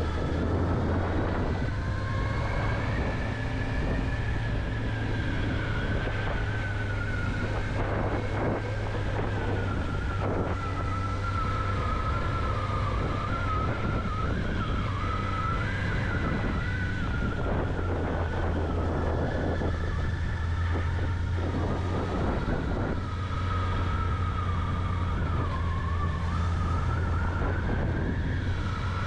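Honda CB650R's inline-four engine running at a steady cruise, with a thin wavering high whine over it.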